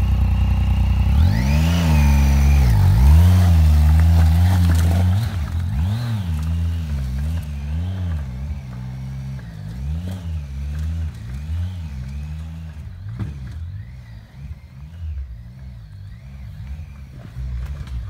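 Triumph Tiger 800 XCa's three-cylinder engine revving in short bursts of throttle, its pitch rising and falling about once a second as the motorcycle climbs a steep rock slope. Loud at first, it fades steadily as the bike pulls away.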